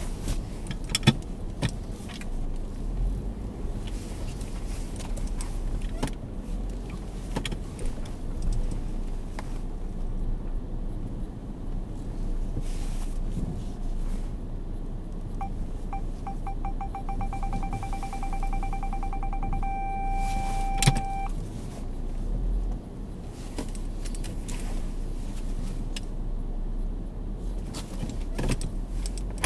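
Car parking-sensor warning beeping over the low hum of the idling engine. About halfway through, short beeps begin, quicken over about four seconds, then merge into a steady tone for about a second, the sensor's signal that the car is very close to an obstacle.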